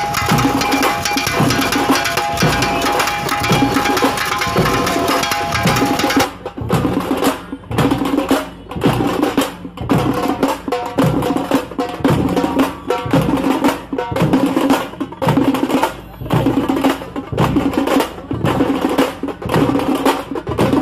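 Percussion-heavy background music. About six seconds in it changes to a sparser, steady drum beat.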